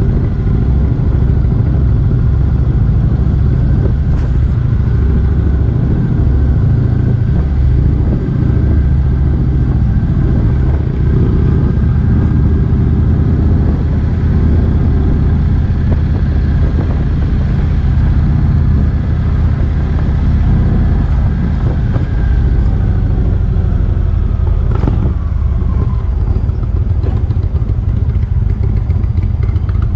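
Motorcycle running steadily at road speed, its engine loud and even throughout.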